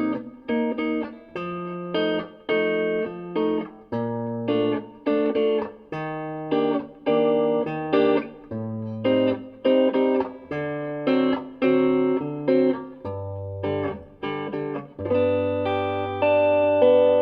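Guitar music: chords picked in a steady rhythm of about two a second over a bass line that steps to a new note every second or two.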